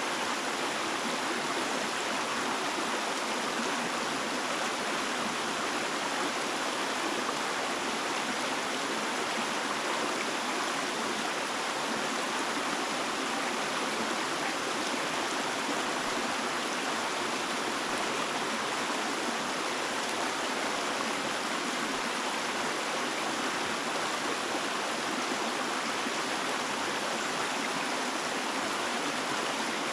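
Water flowing steadily, a continuous even rush like a stream over rocks, with no breaks or changes.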